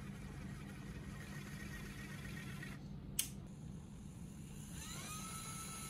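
Small DC motor driving a hand-built excavator arm's linear actuator, running with a faint steady whir. There is a sharp click about three seconds in, and near the end a motor whine rises and settles to a steady pitch.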